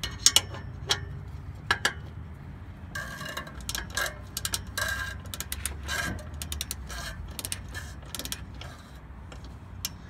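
Socket ratchet wrench clicking as it turns the bolts on the exhaust pipe's flange joint, loosening them to fit washers. A few sharp clicks come first, then quick runs of clicking from about three seconds in.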